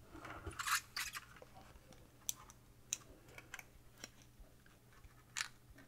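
Faint, scattered small clicks and light rubbing of plastic as fingers work a flat ribbon cable into a ribbon-cable connector with lift-up locking ears.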